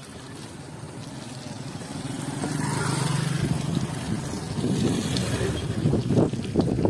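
A motor vehicle engine that grows louder over the first few seconds and holds a steady hum, followed by rough, gusty noise near the end.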